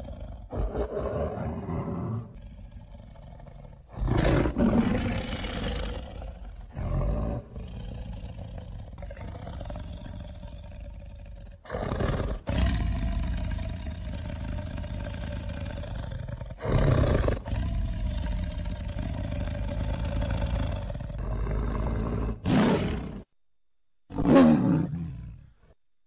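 A string of big-cat roars and growls spliced together as a sabre-toothed cat sound effect, several separate calls with abrupt cuts between them. A short roar near the end is the loudest, falling in pitch as it dies away.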